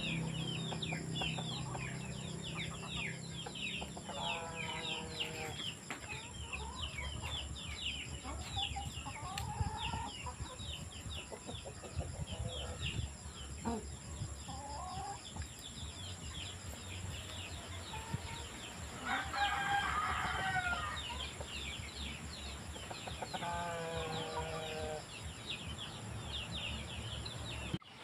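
Free-range chickens clucking and calling while they forage, over a steady stream of short high chirps. Three longer drawn-out calls stand out, the loudest about two-thirds of the way through.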